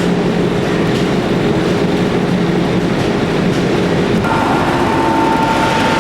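Loud, steady rumble and clatter of heavy forge-shop machinery, with a steady high tone starting about four seconds in.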